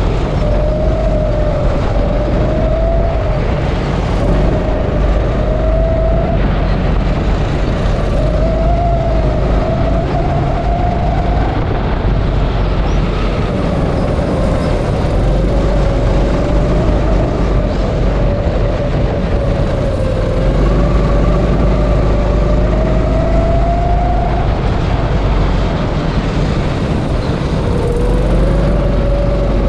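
Go-kart engine running under race load, its pitch rising and falling as the driver brakes and accelerates through the corners, over a heavy low rumble.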